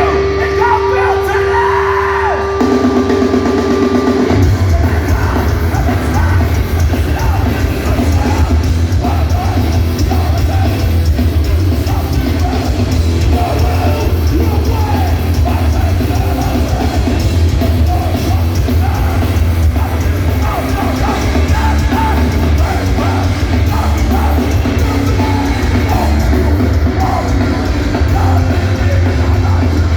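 Hardcore punk band playing live: shouted vocals over distorted guitars, bass and drums. Held guitar notes ring at the start, then the full band comes in heavily about four seconds in.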